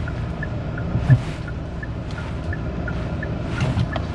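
Car cabin with the engine and road noise running as a steady low rumble, and the turn-signal indicator ticking in an even two-note tick-tock, about three ticks a second. One low thump about a second in.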